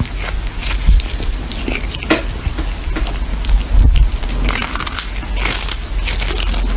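Kitten chewing and biting into a small fish: irregular crunching bites in quick succession.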